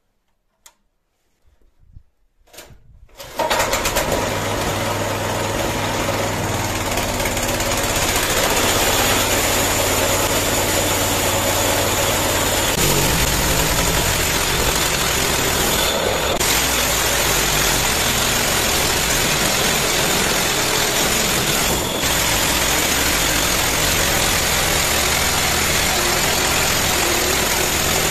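Small petrol engine of a homemade band sawmill pull-started, catching about three seconds in after a few short pulls, then running steadily. From about 13 seconds in the band saw blade cuts through a log as the carriage is pushed along.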